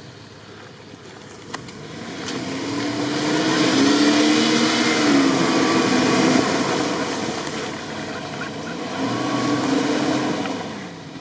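Jeep Cherokee XJ engine revving as the jeep ploughs through a deep mud hole, with tyres churning and splashing mud. The revs build from a couple of seconds in, ease off briefly, then rise again before dropping away near the end.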